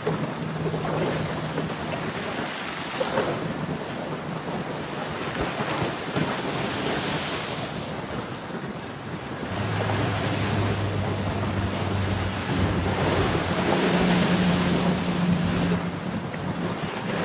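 Steady rushing noise of wind on the microphone, with a faint low hum coming in about halfway through.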